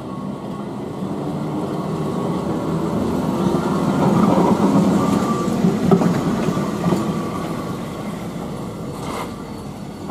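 Electric tramcar, Blackpool Corporation No. 167, passing by on its rails: wheels and motors rumbling, growing louder as it approaches, loudest about four to six seconds in, then fading as it moves away.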